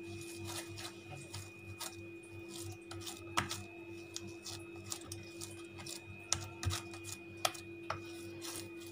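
Hands kneading warm cooked semolina dough on a steel plate: irregular soft clicks and taps of fingers and dough against the metal, over a steady faint hum.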